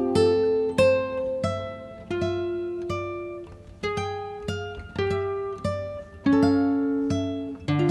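Background music on a plucked string instrument: single picked notes, each starting sharply and ringing away, about one or two a second in a gentle melody.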